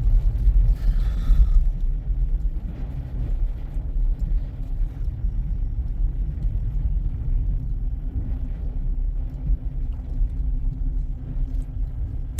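Car driving on a snow-covered road, heard from inside the cabin: a steady low rumble of engine and tyres, with a faint steady hum coming in about halfway through.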